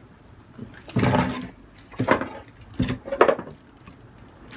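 Handling noise from camcorder parts and packaging: about four short knocks and rustles, as pieces are picked up and fitted.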